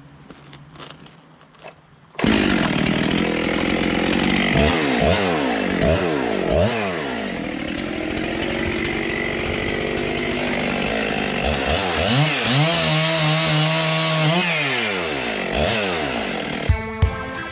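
Husqvarna 257 two-stroke chainsaw cutting into wood, starting suddenly about two seconds in, its engine pitch rising and falling again and again as the throttle is opened and eased.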